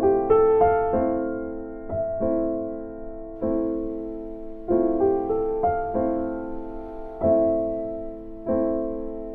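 Background music: slow solo piano, with notes and chords struck every second or so and left to fade.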